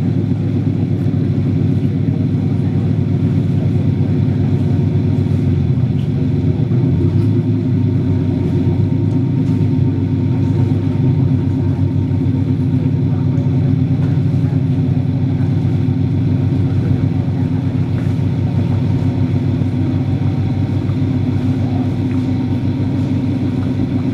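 Twin Detroit Diesel engines of a Pacemaker 46 motor yacht running steadily at low speed, a deep, even engine rumble.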